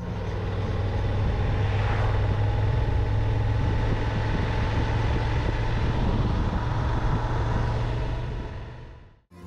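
Motorcycle engine running at a steady speed while riding, a low hum under road and wind noise; the sound fades out near the end.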